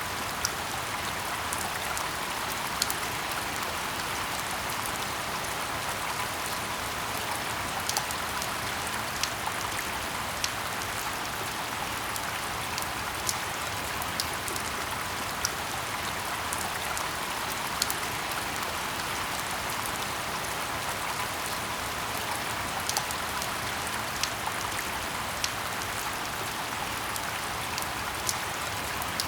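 Steady rain in a forest: a constant hiss of rainfall with sharper drops ticking irregularly through it.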